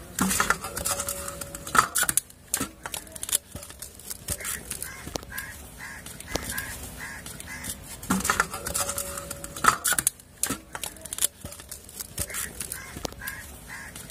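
Hand kneading crumbled chhena on a steel plate: soft squashing with many small clicks of fingers and nails against the metal. Behind it, a bird gives runs of short repeated calls, with two longer single notes.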